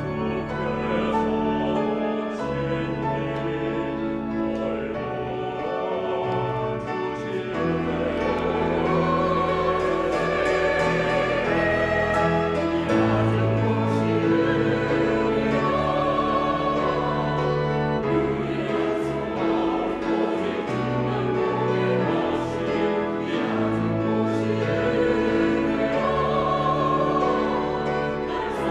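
Mixed church choir singing a sacred anthem in Korean, held chords over organ and piano accompaniment; the voices swell fuller about eight seconds in.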